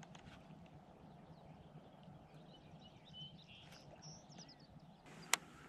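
Quiet outdoor ambience with a few faint bird chirps, then one sharp click near the end.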